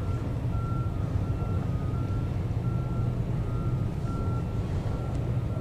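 Patrol boat's engines running steadily with a low rumble, while a thin electronic tone beeps on and off in short, uneven pulses.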